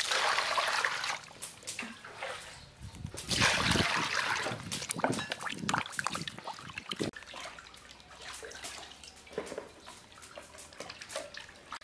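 Water poured into a stainless steel bowl of whole fish, loudest in the first second or so and again around three to four seconds in. Then hands slosh and rub the fish in the water, with small irregular splashes that get quieter toward the end.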